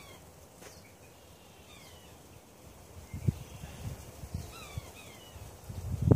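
Small birds chirping faintly, short falling calls, while a heavy double rifle is handled and settled onto a padded shooting rest, giving a few dull knocks and bumps from about three seconds in and a sharper knock near the end. No shot is fired.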